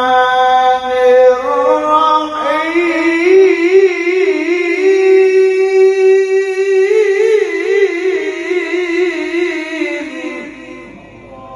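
Qur'an recitation in melodic tilawah style: one voice draws out long held notes. About two seconds in it climbs higher into a long wavering, ornamented note, then fades near the end.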